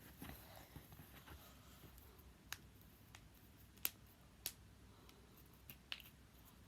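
Finger and knuckle joints cracking: a series of sharp single pops, about half a second to a second apart, the loudest about four seconds in.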